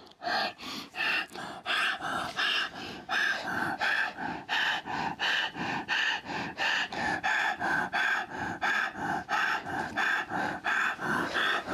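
A person panting hard and fast, short forceful breaths in and out at about three a second, keeping an even rhythm.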